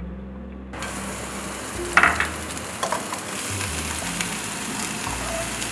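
Luffa strips and peppers sizzling in hot oil as they are stir-fried in a wok, the sizzle starting about a second in. A metal spatula knocks sharply against the wok once, about two seconds in, with a few lighter knocks after.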